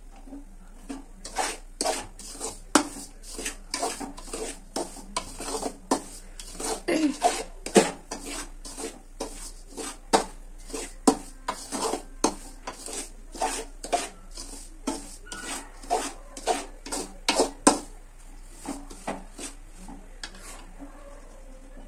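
Metal spoon scraping and knocking against a metal kadai while semolina and coconut powder are stirred as they roast on a low flame. The strokes come about two a second and thin out near the end.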